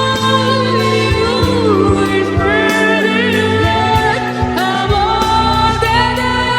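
A singer's voice over backing music, holding notes and sliding through runs between them.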